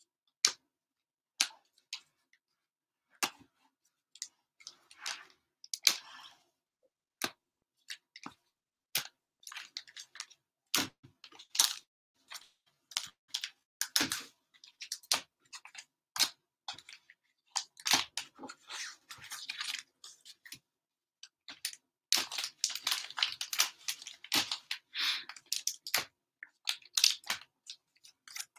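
Sealed plastic-wrapped trading card packs being handled and stacked on a table: crisp taps and clicks as packs are set down, with several stretches of crinkling wrapper rustle.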